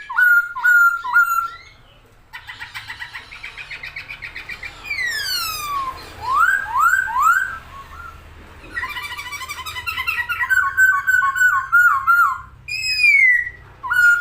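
A poksay Hongkong (hwamei laughingthrush) singing a long, varied song: loud clear whistles, some sliding down and some rising in quick runs, mixed with stretches of fast chattering trills.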